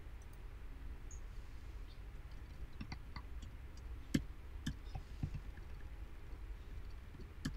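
A handful of scattered computer mouse clicks, the sharpest about four seconds in, over a faint low hum.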